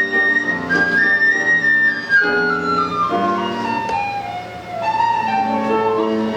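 A sopilka, the Ukrainian end-blown flute, plays a waltz melody with grand piano accompaniment. The melody holds high notes, then falls step by step through a long descending phrase and settles on a lower note near the end, over the piano's sustained chords.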